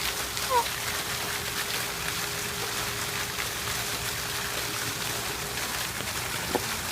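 Steady rush of running water. A short, high falling chirp sounds about half a second in, and a light tap comes near the end.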